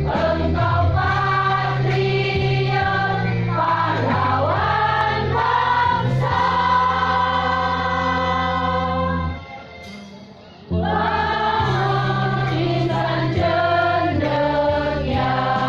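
Choir singing in long held chords. About nine and a half seconds in the singing drops away for about a second, then comes back in.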